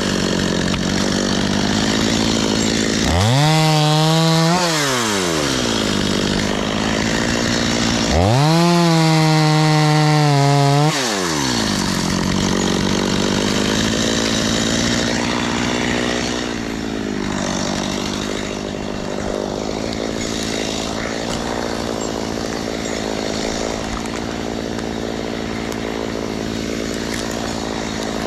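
Two-stroke top-handle chainsaw idling, revved up to full throttle twice for a couple of seconds each, about three seconds in and again around eight seconds in, then dropping back to a steady idle.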